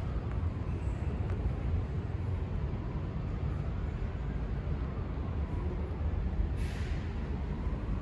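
Busy city-street traffic: a steady low rumble of passing vehicles, with a short sharp hiss of air lasting about half a second near the end.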